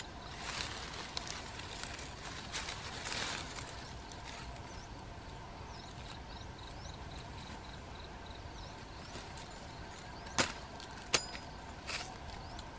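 Rustling of leaves and undergrowth, then three sharp knocks about a second apart near the end: a machete striking the ground while digging out a spider burrow. A faint pulsing insect trill runs underneath.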